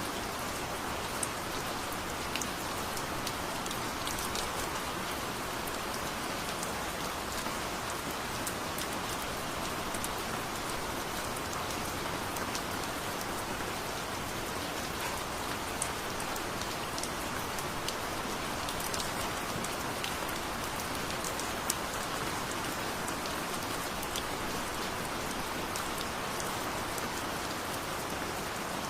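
Heavy rain falling steadily on a surface, an even hiss with scattered sharp ticks of single drops.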